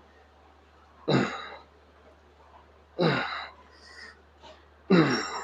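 A man grunting with effort on his pull-up reps: three strained exhalations about two seconds apart, each dropping in pitch.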